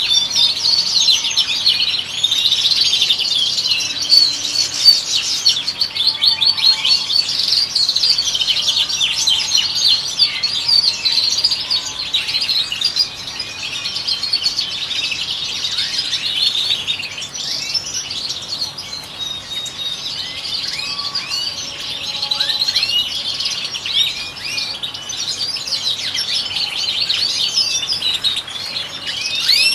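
European goldfinches singing: a dense, continuous stream of quick twittering and trilled notes.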